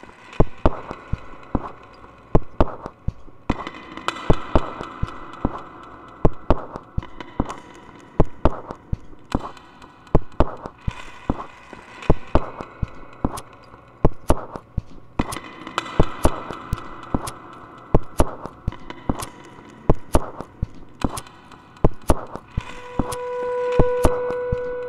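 Live-looped experimental electronic music: a repeating pattern of sharp clicks and knocks, joined in stretches by layered synthesizer tones. Near the end a steady held tone comes in.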